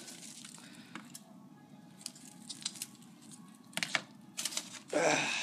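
Scattered light clicks and taps of a Shark cordless handheld vacuum's plastic dust cup being handled and shaken out to empty the debris, with a louder rustling noise starting near the end.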